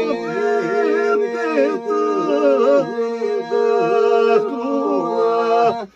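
Men singing unaccompanied: one voice holds a steady drone while another sings an ornamented, winding melody above it, ending on a short break near the end.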